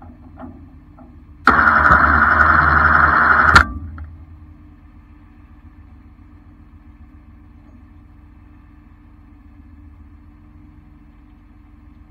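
Steady low drone of an idling tow-truck engine. About one and a half seconds in, a loud burst of noise lasting about two seconds starts and stops abruptly over it.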